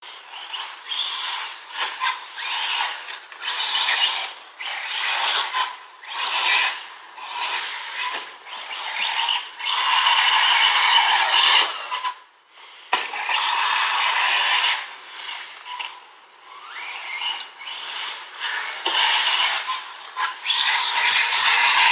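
Radio-controlled off-road cars running around a dirt track, their motors and geartrains whining as they speed up and slow down, rising and falling every second or so, with one rising rev partway through.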